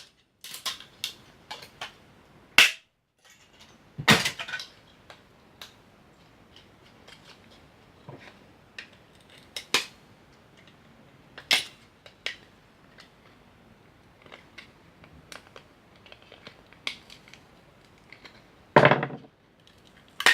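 Hard plastic buttons and front-panel parts of an electronic recorder being snapped and broken by hand: irregular sharp cracks and clicks with small handling rattles between, a few louder snaps, and a longer crunch near the end.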